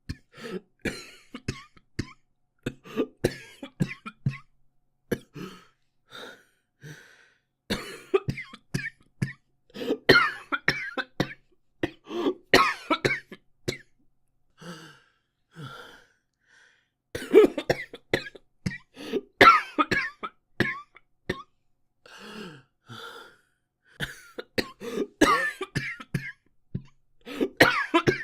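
A boy coughing over and over in runs of short coughs, with brief pauses between runs and several louder, longer coughing fits.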